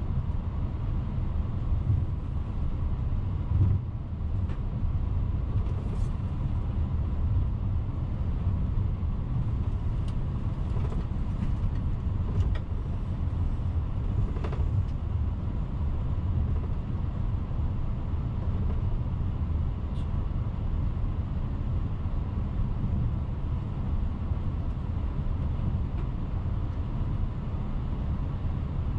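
Airbus A380 flight deck while taxiing: a steady low rumble from the engines at idle and the aircraft's systems. A few faint clicks are scattered through it.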